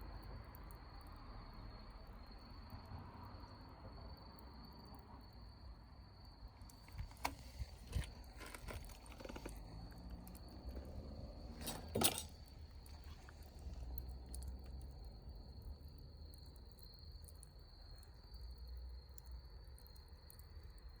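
Crickets trilling steadily in one unbroken high note. Partway through comes a short run of sharp clicks and knocks, the loudest a little past the middle.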